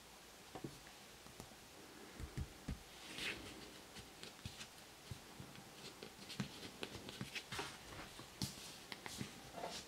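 Faint handling noise from fingers gripping a smartphone on a cardboard surface: scattered small clicks and taps, with a brief scrape about three seconds in.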